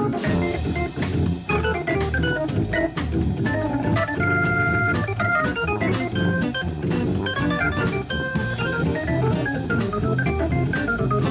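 Jazz combo playing live: a Hammond organ carries the lead and also plays the bass line on its foot pedals. A drum kit keeps a steady beat with regular cymbal strokes, and a guitar plays alongside.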